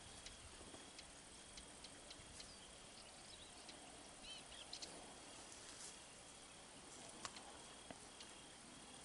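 Near silence: quiet woodland ambience with a few faint high bird chirps about halfway through, a faint broken high trill, and scattered small ticks and clicks.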